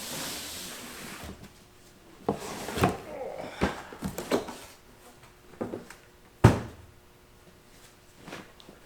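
A tool bag being handled: a rustle for about the first second, then a series of knocks and clunks, the loudest about six and a half seconds in.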